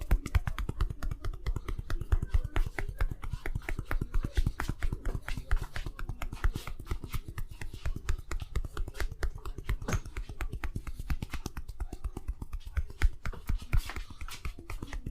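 Rapid, rhythmic hand slaps and taps of a massage: palms and fingers striking skin many times a second, without a break.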